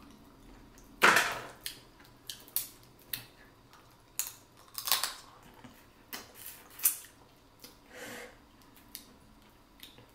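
Boiled crawfish claw shells being cracked open, a string of irregular sharp cracks and snaps, the loudest about a second in.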